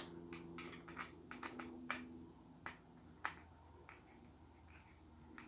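Faint, scattered small clicks and taps of a screwdriver tip against a small screw and the metal switch hardware on a guitar pickguard, the loudest click right at the start and the rest irregular, thinning out after about three and a half seconds. The screw is refusing to start into the pickguard.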